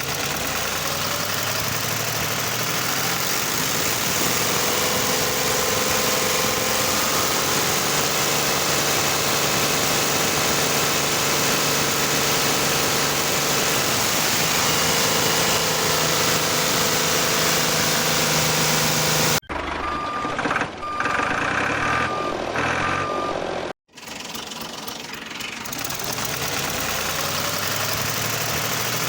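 A small machine motor runs steadily, its pitch shifting slowly. About two-thirds of the way through, a short different stretch cuts in, with four short beeps like reversing beeps.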